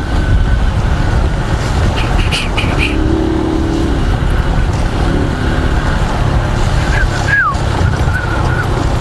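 Motorcycle riding in the rain: a steady rush of wind noise buffeting the microphone, with the small 150 cc single-cylinder engine running underneath.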